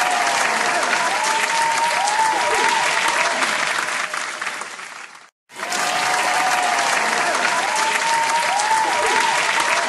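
Crowd applause and cheering sound effect, with a few rising-and-falling whistle-like tones over the clapping. It cuts out briefly a little past five seconds in and then plays again from the start.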